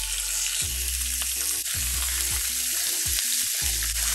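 Chicken pieces searing skin side down in hot olive oil in a pan, with a steady sizzle.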